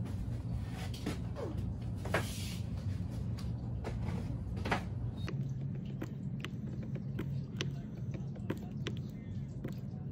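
Scattered light clicks and taps from handling painting gear at the easel and on a paint palette, over a steady low hum.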